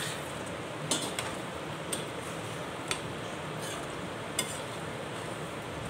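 Metal spatula stirring boiled black chickpeas into frying masala in a metal kadhai: a steady sizzle with sharp clinks of the spatula against the pan about once a second.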